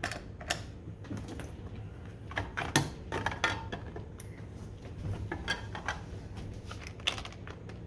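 Scattered small metallic clicks and taps from a Digby Bravo lock and lockpicking tools being handled while the lock is taken apart, the sharpest click nearly three seconds in.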